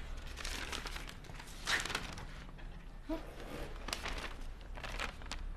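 Faint rustling of a paper letter being handled and passed from hand to hand: a few soft crinkles and light taps over quiet room tone.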